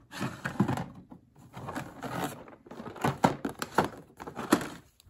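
A red plastic storage box and its lid being handled and rummaged through: several bursts of clattering with sharp plastic knocks and clicks.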